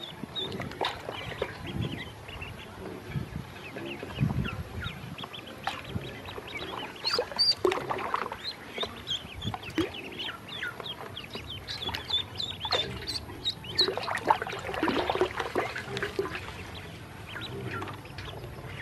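Many ducklings peeping in short, high calls, busiest in the middle, with water splashing in a steel basin as they paddle.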